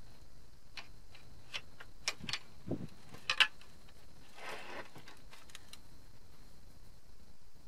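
Small clicks and knocks of metal generator parts as the stator housing is handled and turned on a plywood bench by gloved hands, with a low thud, the loudest knock about three and a half seconds in, and a brief rustle a second later.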